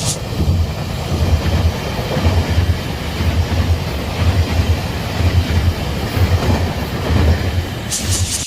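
Train passing on the railway line, its wheels clacking over the rail joints in a steady rhythm of paired knocks about once a second.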